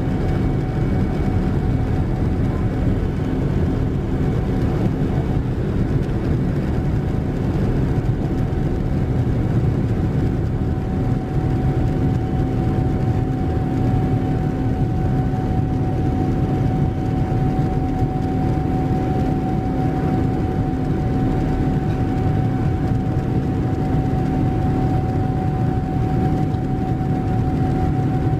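Boeing 787-9's Rolls-Royce Trent 1000 turbofans at climb power, heard inside the cabin: a steady, even engine and airflow noise carrying a low steady hum and a higher steady tone that stands out more in the second half.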